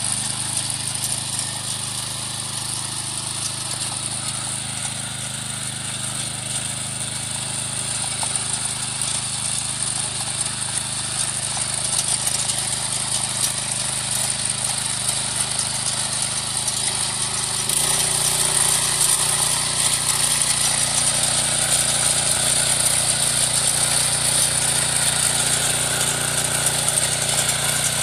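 MH610 power weeder's small engine running steadily while its rotary tines till the soil between banana plants. The sound steps up louder suddenly about two-thirds of the way through.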